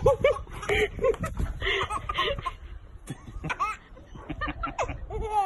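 A baby laughing in short, repeated giggling bursts.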